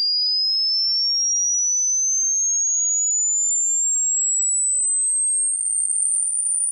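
Pure electronic test tone, a thin high whistle, gliding slowly and steadily upward in pitch and turning slightly rough and wavering near the end. It is a hearing-test frequency sweep, climbing toward the high pitches that ears stop hearing with age.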